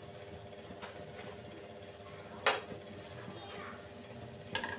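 Metal spoon clinking and scraping against an iron tawa as it works over a paratha cooking on it: a few light clicks, with one sharper clink about halfway and another near the end.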